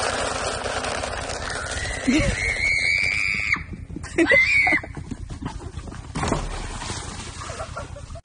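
Horse feed rattling as it is poured into a bucket, then a horse whinnying twice: a long high call and a shorter one that rises and falls.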